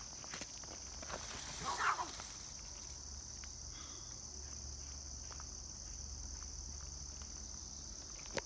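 Steady high chirring of crickets, with scattered light steps and a brief animal sound about two seconds in.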